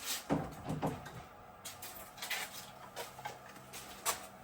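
Irregular knocks, clicks and light thuds of hard parts and a wood block being handled and set down while the wheel hub is propped up for knocking out the bearing seat.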